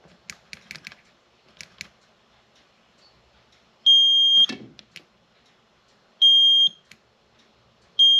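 Klein Tools clamp meter's continuity beeper sounding three times, each a steady high beep about half a second long, as the test-lead tips touch: the meter signalling a closed, near-zero-resistance path between the probes. A few light clicks come before the first beep.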